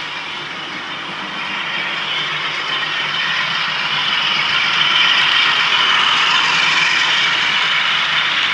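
Model diesel locomotive fitted with a DCC sound decoder, running with its diesel engine sound played through the loco's small speaker and the noise of the running train. It grows louder as the train comes closer, loudest from about halfway through.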